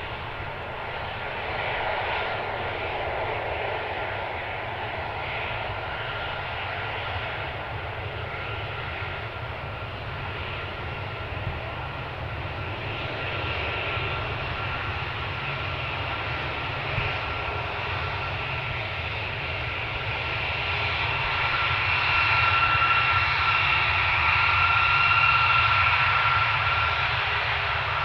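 Four turbofan engines of a C-5 Galaxy transport taxiing: a steady jet rumble with a high whine that grows louder in the second half.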